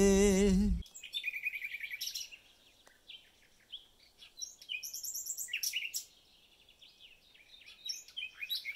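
A song with a sung voice ends within the first second; then a small songbird sings several short bursts of quick, high chirping notes, with pauses between them.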